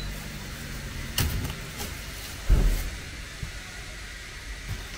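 Handling noises over a low steady hum: a sharp knock about a second in, then a heavier, louder thump about halfway through, with a few faint clicks.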